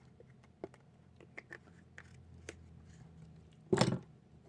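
Faint scattered clicks and taps of small objects being handled on a workbench, over a low steady hum, with one short louder noise near the end.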